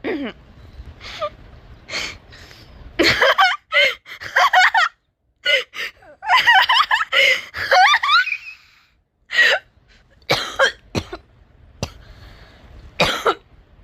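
A person laughing in two bouts, with short coughs before them and several sharp coughs afterward.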